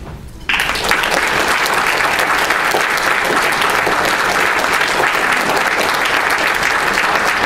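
Audience applauding, breaking out suddenly about half a second in and holding as steady clapping.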